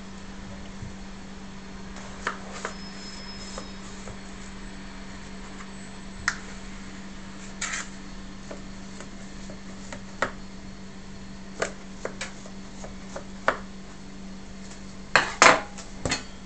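A kitchen knife scoring a disc of semolina dough in a wooden bowl, the blade clicking and knocking against the wood every second or two, with a louder cluster of knocks near the end. A steady low hum runs underneath.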